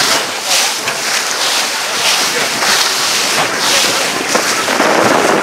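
Wind buffeting the microphone over the rush and splash of sea water along the hull of a boat under way, coming in repeated surges.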